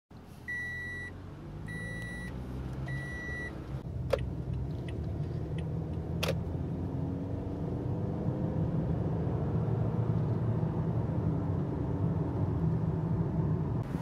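Car cabin: a warning chime beeps three times, typical of an unfastened-seatbelt reminder. Engine and road noise rise gradually as the car gathers speed, and two sharp clicks come about four and six seconds in.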